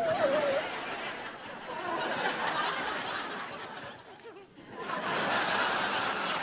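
Sitcom studio audience laughing, in two swells with a short lull about four seconds in.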